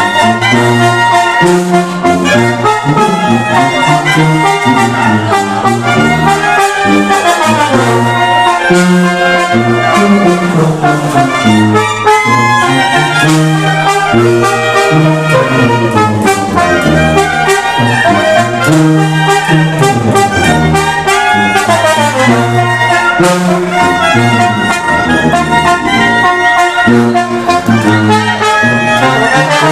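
Mexican banda brass band playing: trumpets and trombones carry the melody over a low bass line, with percussion hits keeping a steady beat.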